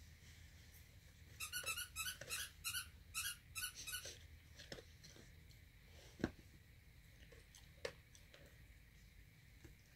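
Puppies chewing and tugging a fabric toy: a quick run of short squeaks about a second and a half in, lasting a couple of seconds, then a few soft clicks of teeth and mouthing.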